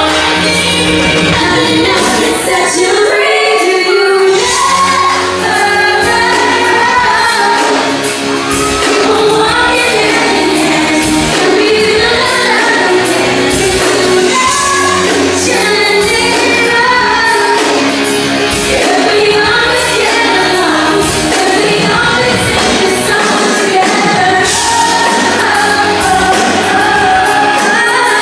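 Live pop song: singing over a full band, loud and continuous, echoing in a large hall.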